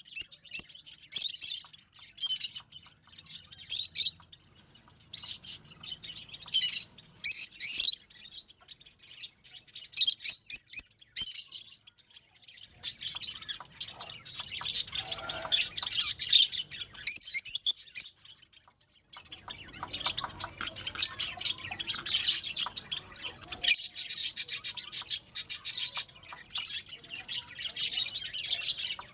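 A group of caged rosy-faced lovebirds chattering: rapid high-pitched chirps and squawks, in short spells at first, then near-continuous from about halfway through, with a brief pause about two-thirds of the way in.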